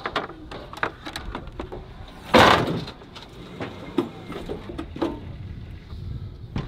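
Scattered knocks and clanks from a BMW E36 being unloaded off a metal flatbed car trailer, with one louder, noisy thump about two and a half seconds in.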